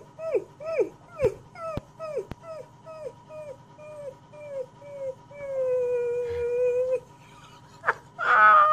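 Puppy howling: a run of short yips, each dropping in pitch, about three a second, then one long held howl, and a louder, higher cry near the end.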